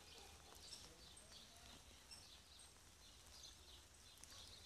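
Faint, scattered bird chirps and calls over quiet outdoor ambience.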